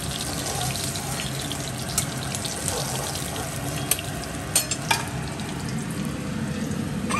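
Hot oil sizzling steadily in a metal kadai as fried hilsa fish pieces are lifted out with a steel spatula, with a few sharp clicks of the spatula knocking against the pan.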